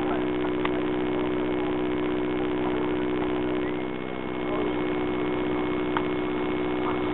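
A steady mechanical hum of several even tones that hold unchanged throughout, dipping slightly about four seconds in, with a couple of brief clicks.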